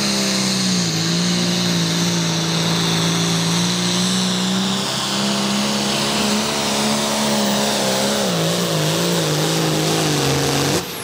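John Deere 8110 light pro stock pulling tractor's turbocharged 466-cubic-inch diesel running flat out under the load of the sled, with a high turbo whistle above it. The engine pitch sags about a second in, climbs back around the middle, then wavers and falls as the tractor bogs down toward the end of the pull. Near the end it drops off suddenly as the throttle comes off.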